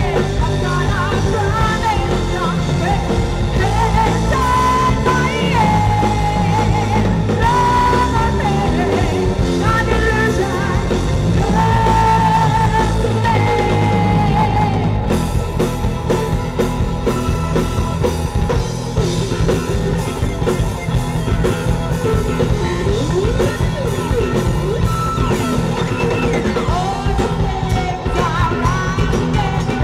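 Live rock band playing: a singer's voice holding long notes over electric guitar, bass, drums and keyboards. From about halfway the texture gets busier, with the drums more prominent.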